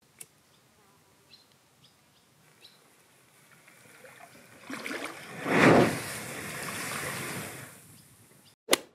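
A large mass of match heads catching fire: the noise builds, flares up loudly about halfway through, then settles into a steady hissing burn that dies away near the end.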